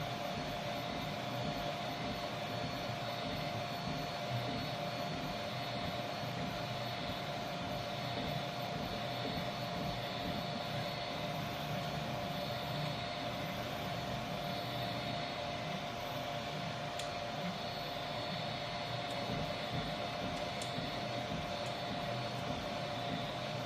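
Vivedino Troodon 3D printer running a print: steady stepper-motor whine over the busy rattle of the moving gantry, with a few faint sharp ticks in the second half. The owner hears cracking and popping from the right side of the gantry, worse at higher print speed, and suspects bad bearings in the right front pulleys.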